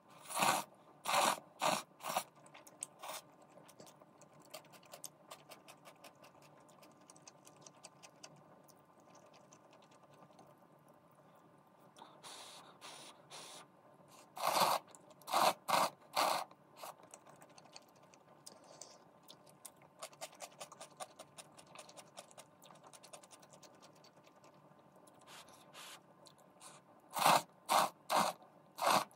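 Instant black-bean noodles (Jjapaghetti) slurped with chopsticks in three runs of four or five quick slurps: near the start, around the middle and near the end. Faint chewing between the runs.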